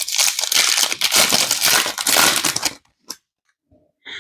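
Foil trading-card pack wrapper crinkling and crackling as it is handled and torn open. It stops about three seconds in, then a faint click.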